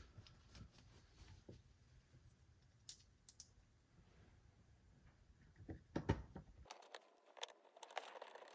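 Faint, scattered small clicks and taps of screws and a screwdriver being handled while the screws go back into the rear seat's mounting. The clicks come closer together from about six seconds in.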